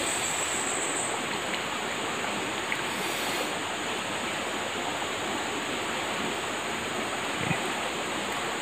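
Small forest stream flowing steadily, with a high, steady insect drone above the water sound and a faint knock near the end.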